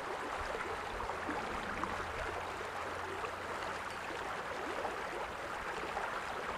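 Small stream running, a steady even rush of water.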